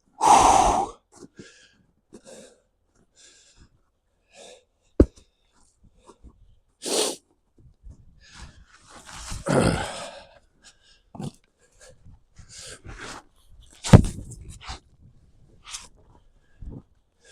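Heavy, forceful breaths and exhales of a man splitting firewood by hand, close to the microphone, with two sharp axe strikes into wood: one about five seconds in and a louder one around fourteen seconds.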